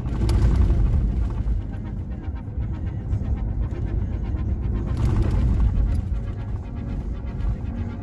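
Car driving on a gravel road, heard from inside the cabin: a steady low rumble with a crackle of loose stones under the tyres.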